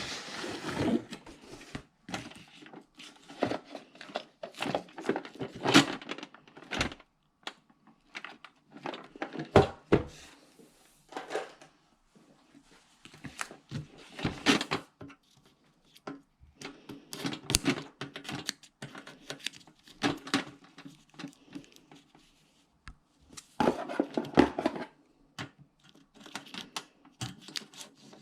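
Hands unpacking a thread repair kit: irregular crinkling and tearing of plastic packaging, mixed with sharp clicks and light knocks as the kit's case and parts are handled.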